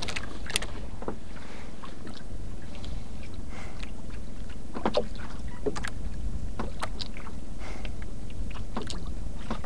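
Steady low rumble on a small wooden outrigger fishing boat at sea, with scattered light clicks and knocks.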